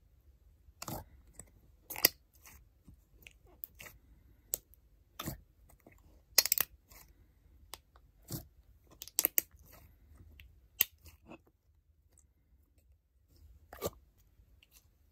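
Clear crunch slime being poked and pressed with fingers, giving irregular sharp clicks and crunchy pops, some louder than others.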